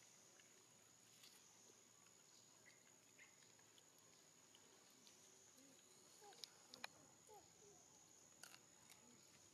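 Near silence with a faint, steady, high-pitched insect drone, and a few faint clicks and small squeaks about six to seven seconds in and again near the end.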